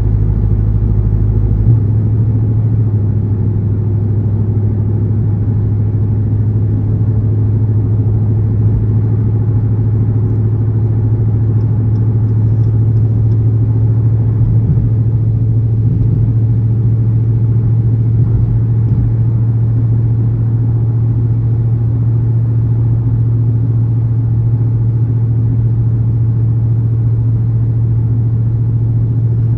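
Dodge Charger R/T's 5.7-litre V8 cruising at a steady highway speed, its exhaust a loud, steady low drone with no revving. The exhaust has had its catalytic converters removed and has been gutted.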